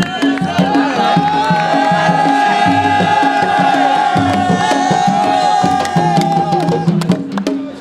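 Drum-driven celebration music, a steady rhythmic pattern of pitched drum beats with a long held high note over it from about a second in until about seven seconds in; the music breaks off near the end.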